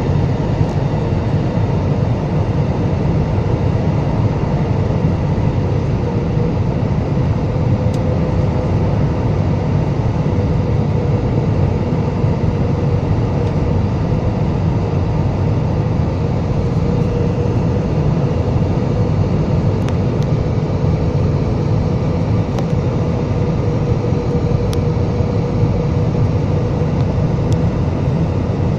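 Steady jet airliner cabin noise during descent: the low rumble of the engines and rushing air, with a steady mid-pitched hum over it.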